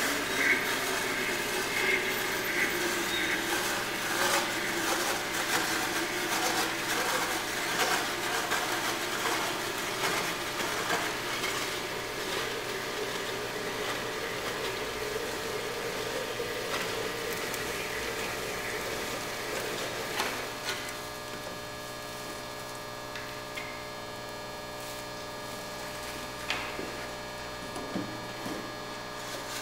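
Liquid nitrogen hissing and sputtering as it runs out of a dewar's transfer hose and boils off, with a faint tone that slowly rises. About two-thirds of the way through the flow stops, leaving a low steady hum and a few clicks.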